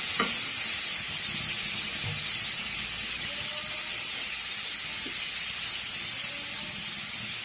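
Chopped onions sizzling in hot coconut oil in an aluminium kadai, a steady hiss as they begin to soften.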